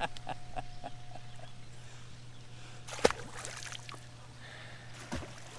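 Caught fish being handled and put back over the side of a bass boat: small taps, then a sharp knock about three seconds in with a short splash after it, and a smaller knock near the end, over a steady low hum.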